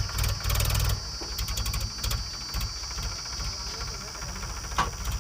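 Heavy diesel engine of a backhoe loader or tractor running with a fast, even throb, louder in the first second, with a single sharp clank near the end.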